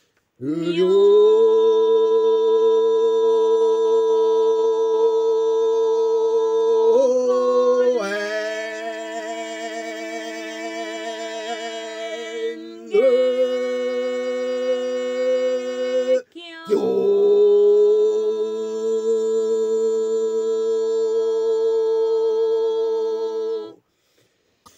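A single voice intoning long, drawn-out held notes in Buddhist chanting, each note sliding up slightly at its start. The pitch shifts about 7 and 13 seconds in, there is a short breath near 16 seconds, and the last note is held until just before the end.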